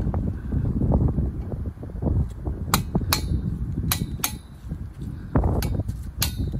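Metal hand tool striking the top of a galvanised steel fence post: about half a dozen sharp metallic knocks with a short ring, in the second half.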